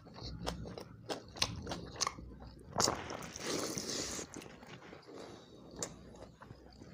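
Close-miked chewing and mouth smacks of a man eating watered rice by hand, a string of short wet clicks, with a longer noisy stretch about three seconds in as a handful goes to his mouth.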